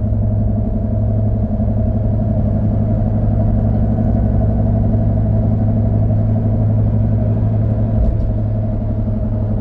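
2009 Ford F-150's 4.6 L V8 and road noise heard from inside the cab while driving: a steady low drone with no clear change.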